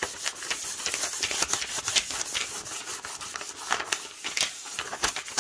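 Clear plastic backing film rubbed back and forth by hand over a furniture transfer on a painted wooden board, burnishing the transfer down: a continuous crinkly rustle of plastic sliding on the surface, with many small crackles.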